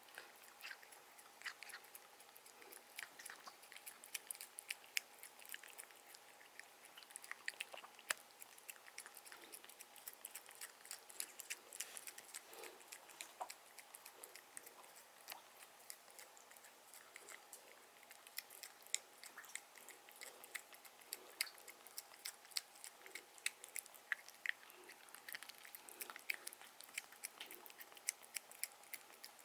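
A cat chewing food, with many small irregular crunching clicks.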